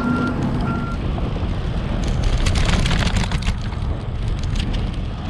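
Wind and tyre rumble on a bicycle-mounted camera riding a paved path. A repeated electronic beep about twice a second, like a reversing alarm, stops about a second in, and from about two seconds in there is a stretch of crackly rattling for a second and a half.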